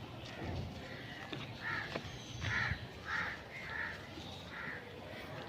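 A series of about six short animal calls, spaced roughly half a second to a second apart, over a faint steady background.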